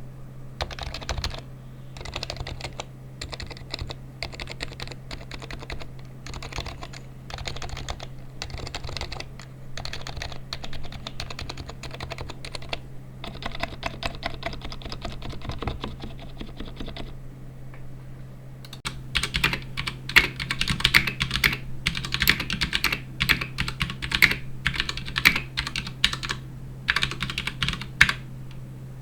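Typing on a computer keyboard in bursts of rapid keystrokes. About nineteen seconds in, the keystrokes become louder and sharper.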